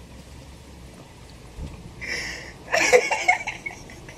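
Quiet room tone, broken about two seconds in by a short breathy hiss and then a burst of laughter.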